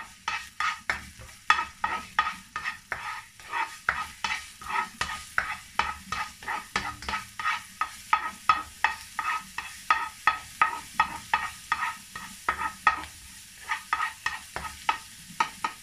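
Black spatula scraping and tapping around a non-stick wok, about three strokes a second, stirring minced garlic frying in a little oil.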